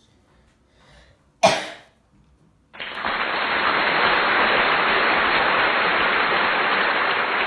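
A person coughs once, sharply, about a second and a half in; they are getting over a cold. A little later a loud, steady rushing hiss starts abruptly and carries on.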